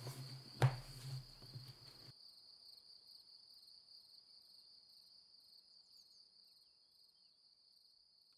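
Crickets chirring steadily in a high, even trill that slowly fades out. About half a second in, a single soft knock as a book is laid down on a wooden table, over a low room hum that cuts off about two seconds in.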